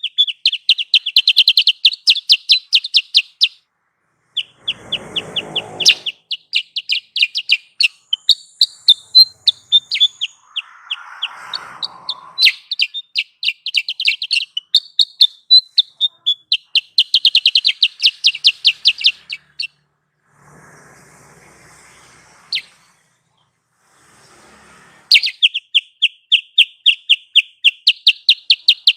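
Kutilang sutra bird lure call: rapid trains of sharp, high chirps, about ten a second, in runs of a few seconds broken by short pauses. Brief patches of hiss come through in some of the pauses.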